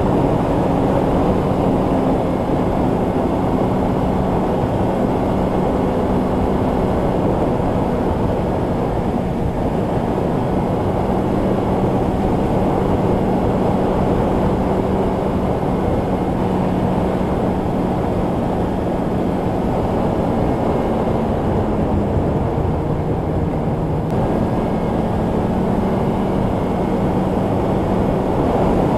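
Polaris two-stroke snowmobile engine running steadily at trail-cruising speed, heard from the rider's seat with a rush of wind over the microphone. The engine note shifts slightly about three-quarters of the way through.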